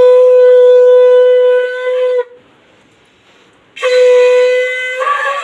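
Conch shell (shankh) blown loudly for the puja in two long held blasts of one steady note. The first ends about two seconds in; the second starts nearly two seconds later and breaks up briefly to a higher note near the end.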